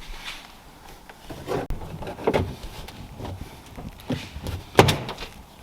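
A handful of separate knocks and clunks, the loudest about five seconds in.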